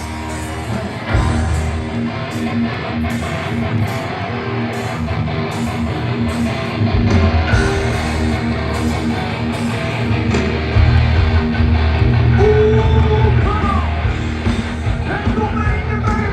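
Hard rock band playing live: distorted electric guitars over bass and drums, with a steady cymbal beat. The music gets louder about a second in.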